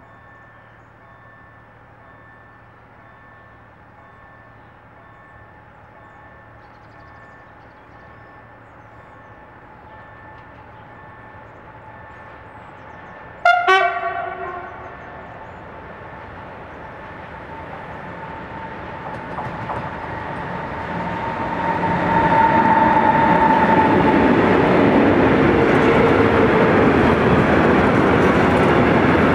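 A Newag Dragon E6ACTab electric locomotive approaching with a freight train of tank wagons. It gives one short horn blast about halfway through. Then the rumble of the train grows steadily louder and stays loud over the last several seconds as the locomotive and tank wagons pass close by.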